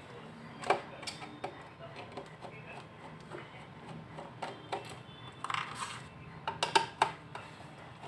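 Light metallic clicks and taps from handling a computer power supply's sheet-metal case while its cover screws are taken out, with a brief scrape in the middle and a few sharper clicks near the end.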